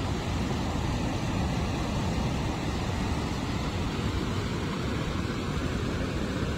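Steady rushing of floodwater pouring from the Three Gorges Dam's open spillway sluice gates: an even noise with no breaks, heaviest in the low end.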